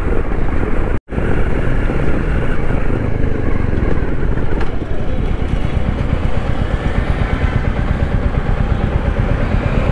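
Royal Enfield Meteor 350's single-cylinder engine running, with road noise. The sound cuts out for an instant about a second in.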